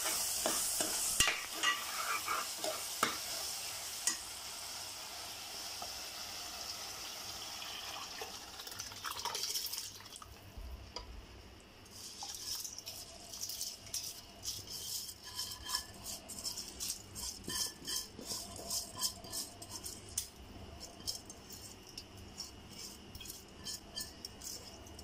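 Vegetable masala sizzling in a pressure cooker while a spoon scrapes and stirs it. About ten seconds in the sizzle dies away as soaked rice and water go in, and then a spoon clinks against the pot, a couple of times a second, as it stirs the liquid.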